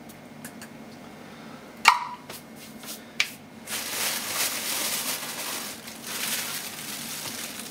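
A metal measuring cup knocks once with a short ring against a metal bread machine pan, with a few lighter clicks around it; from about halfway through, a plastic bag of flour is handled and crinkles steadily.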